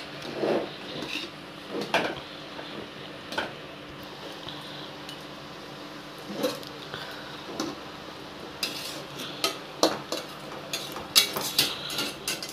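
A metal spoon scraping and knocking against a kadai while a spinach and potato curry is stirred: scattered scrapes at first, then a quicker run of sharp clinks in the last few seconds.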